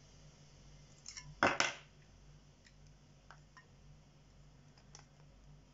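Handling noise from a disassembled GoPro Hero 7 Black: a couple of small clicks, then one short, louder clatter about a second and a half in, followed by a few faint single clicks as the housing and internal board are pulled apart.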